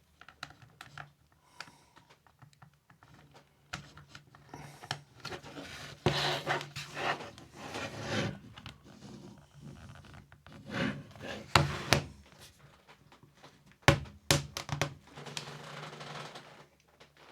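A plastic guitar pick scraping and clicking along the seam of a tablet's plastic case as it is worked in to pry the case open, in irregular scratches and sharp ticks with a few louder clicks.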